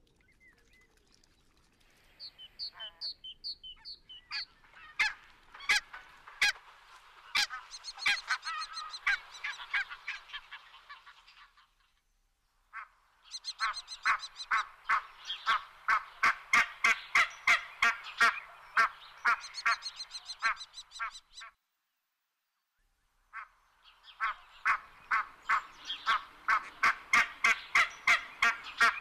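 Barnacle geese calling: a rapid run of short honks, about three a second, in three stretches broken by two brief gaps.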